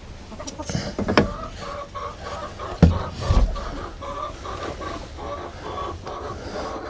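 Chickens clucking: a run of short, repeated notes at about three a second, with a few sharp knocks, the loudest about three seconds in.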